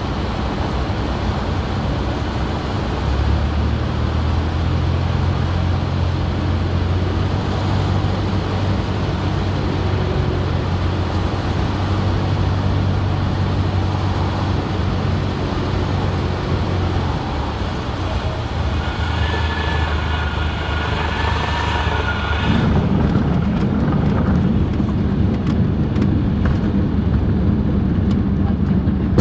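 Cabin noise of a single-engine light aircraft landing on a grass strip. The piston engine and propeller drone steadily at low power on approach, and a high wavering tone sounds for a few seconds just before touchdown. About three-quarters of the way through, the wheels touch down and the plane rumbles and rattles over the grass as it rolls out.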